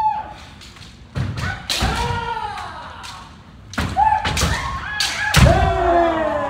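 Kendo sparring: loud kiai shouts that fall in pitch, cut through by sharp cracks of bamboo shinai striking armour and heavy foot stamps on the wooden floor, several times over.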